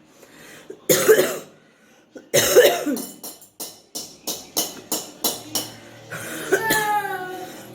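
A woman with phlegm on her chest coughing hard to bring it up: two loud coughs about a second and two and a half seconds in. These are followed by a run of short sharp clicks and a drawn-out throaty sound that falls in pitch near the end.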